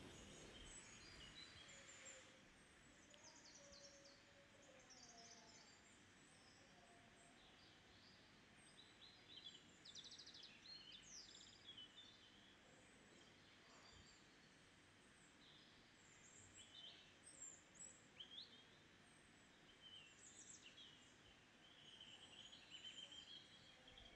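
Faint small birds chirping in scattered short calls over a low steady hiss.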